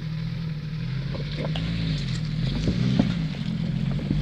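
Off-road Jeep's engine running at low revs while the Jeep crawls over rocks, a steady drone that rises and dips slightly with the throttle. Several short knocks come through it, the sharpest about three seconds in.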